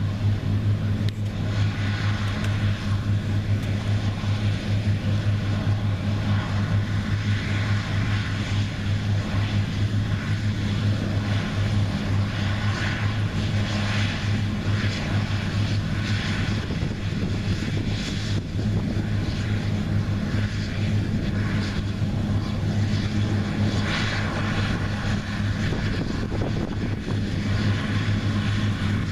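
New Holland CR9060 combine running steadily under load while harvesting soybeans: an even engine hum with a rushing hiss above it that swells and fades every second or two.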